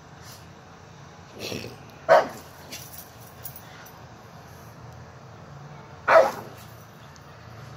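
A small dog barking at a passing airplane: two sharp barks about four seconds apart, with a softer, lower woof just before the first.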